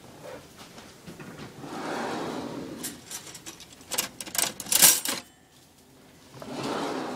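Metal cutlery clattering and clinking in a kitchen drawer as someone rummages through it. The sharp rattles come in a run from about three to five seconds in, with duller sliding or rubbing sounds before them and again near the end.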